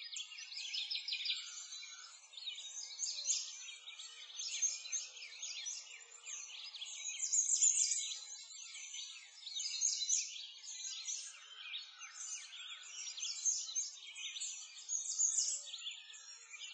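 A dense chorus of many small birds chirping and twittering together, a continuous stream of quick high notes.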